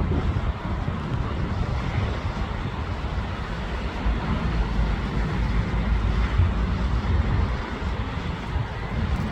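Gusty wind buffeting the microphone, a loud uneven low rumble that swells and fades, over a steady rushing noise.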